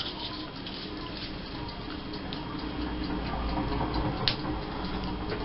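Faint, even mechanical ticking, with one sharper click about four seconds in, over a low steady hum.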